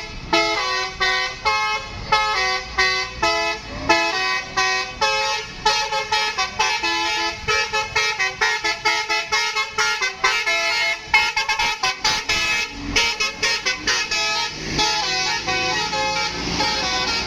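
Bus telolet horn, a tour bus's multi-tone musical horn, playing a fast tune of short chords one after another.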